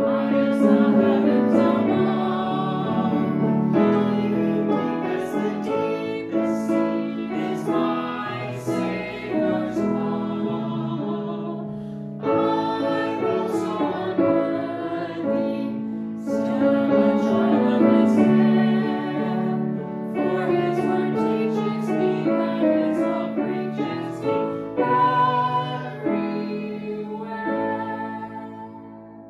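A man and a woman singing a hymn with grand piano accompaniment; the music fades away near the end.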